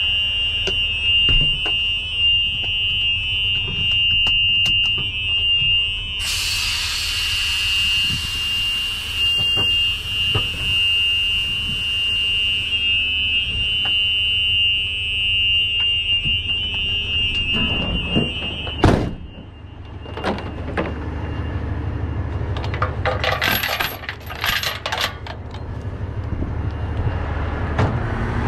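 A cab warning buzzer in a Hino box truck sounds a steady high-pitched tone over a low engine rumble, with a stretch of hiss for several seconds about a quarter of the way in. About two-thirds of the way through, a sharp knock like a door shutting cuts the buzzer off, and metal clinking follows near the end.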